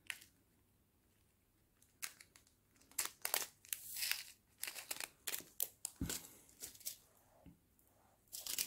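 Small plastic packet of diamond-painting drills crinkling and tearing as it is handled and opened, in a string of short irregular crackles starting about two seconds in.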